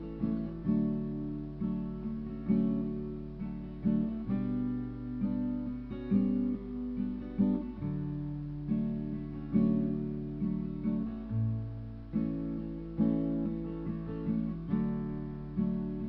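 Acoustic guitar playing an instrumental intro: strummed chords, each struck and left to ring, changing every second or so.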